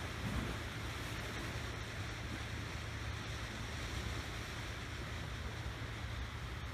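Marine daylight distress smoke signal burning, a steady hissing rush as it pours out orange smoke, with wind rumbling on the microphone.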